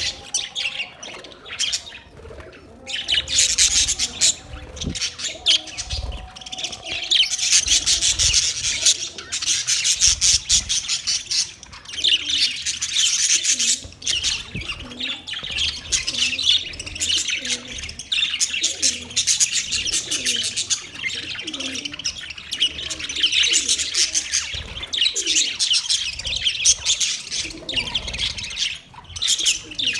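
Parrots chirping in a rapid, dense chatter of high chirps, with a brief lull about two to three seconds in.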